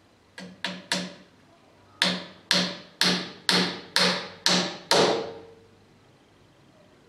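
Hammer blows on a wooden workpiece: three quick strikes, then seven evenly spaced strikes about two a second, each ringing briefly.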